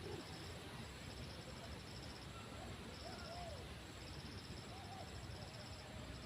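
Insects chirping in rapid high-pitched pulsed trains that start and stop every second or two, over a low steady outdoor rumble. A few faint short rising-and-falling calls come in around three and five seconds in.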